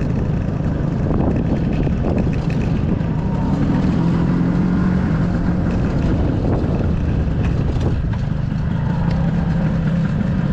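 1997 Vespa P200E scooter's 200 cc two-stroke single-cylinder engine running while riding, a steady drone over low rumble, running well with the fuel tap open.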